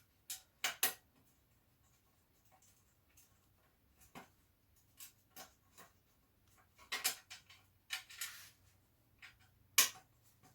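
Scattered clicks and light metallic taps of hand work fitting a motorcycle front mudguard and its bolts, with a short scrape about eight seconds in and one sharp click near the end.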